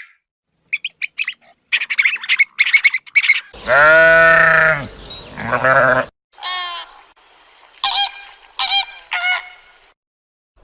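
A series of animal calls: quick, short chirps in the first few seconds, then one long, loud call, followed by several shorter calls.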